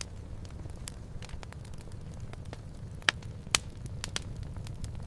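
Open fire crackling: irregular sharp pops over a steady low rumble, with two louder pops a little past three seconds in.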